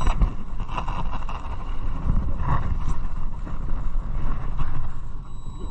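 Fishing boat's engine running, with wind buffeting the microphone and a few knocks from handling the rod-mounted electric reel, about two seconds in.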